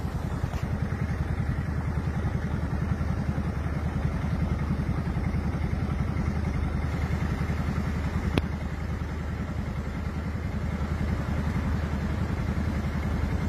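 Vehicle engine running steadily with an even, fast chug, and one sharp click about eight seconds in.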